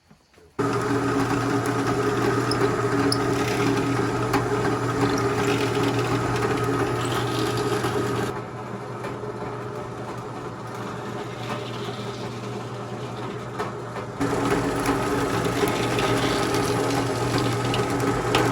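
A small electric power tool motor running steadily, easing to a lower, quieter speed for several seconds in the middle before picking back up, then cutting off suddenly at the end.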